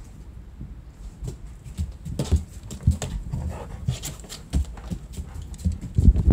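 German Shepherd's claws ticking and tapping on a hard floor as it moves around the sofa. Near the end come heavier thumps and scrabbling as a kitten dashes out from under the sofa.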